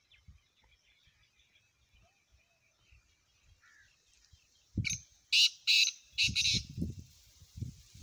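Black francolin calling: a loud, harsh series of about five grating notes, starting about five seconds in. A low rumbling noise comes in under the last notes.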